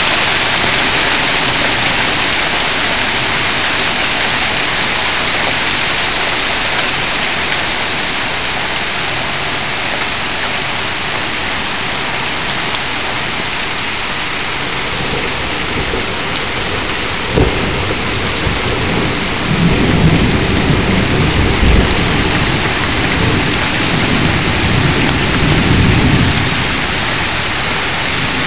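Heavy rain falling as a steady hiss, with runoff pouring over a roof edge. About two-thirds of the way through, a sharp crack of thunder is followed by several seconds of low rumbling.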